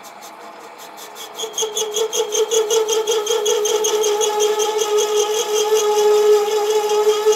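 Small Sieg SC4 bench lathe turning a cast iron piston. About a second in, the grooving tool bites in to cut a piston ring groove, and the cut sets up a loud ringing tone that pulses evenly several times a second.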